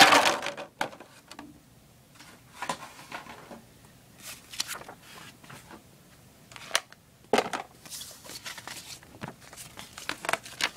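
Intermittent handling noises from unboxing: a louder rustle and knock right at the start as the USB cable is set down on the wooden floor, then scattered short rustles, crinkles and light clicks as the paper quick-start guide and packaging are handled.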